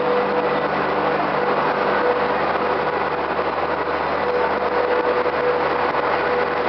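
Steady rumble and hum of a train at a station platform, with a steady tone that fades in and out.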